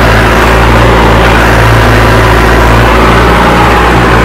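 Mahindra Arjun Novo 605 tractor's 57 hp turbo diesel engine, fitted with a modified fuel pump, running loud and steady under load while pulling a tine cultivator through tilled soil.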